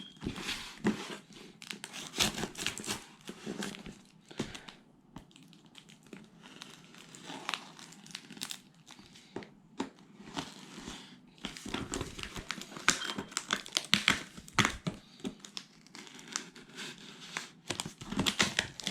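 A product box being opened by hand and its packaging handled: irregular rustling and crinkling with scattered clicks and knocks, easing off briefly about five seconds in and again about ten seconds in.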